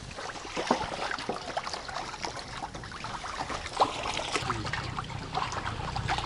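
Hands sloshing and swishing water in a large metal basin, stirring urea into it to make a feed-treatment solution, with many small irregular splashes.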